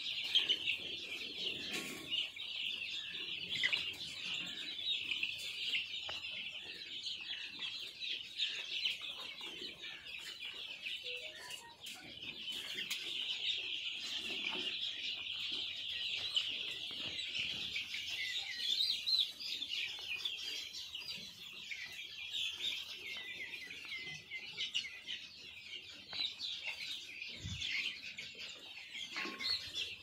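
A large flock of young chickens, several hundred growing chicks, peeping and cheeping all at once in a dense, unbroken high-pitched chorus.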